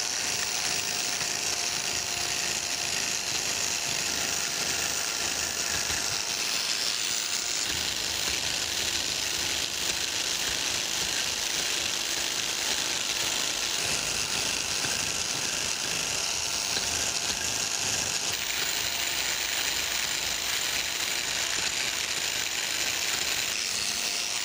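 Biax electric power scraper running steadily, its blade chattering in rapid strokes across the cast-iron dovetail of the cross slide. This is step scraping: repeated passes to marked lines to take down the high end of the slide.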